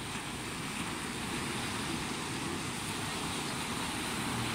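Surf washing up the beach and wind on the microphone, with the engines of jet skis running offshore underneath; a steady low engine hum comes in near the end.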